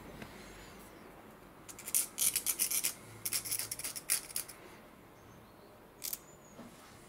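Rapid scratchy rubbing strokes, as of a small hand tool or abrasive worked against a hard surface. The strokes come in two runs of about a second each, with one more short stroke near the end.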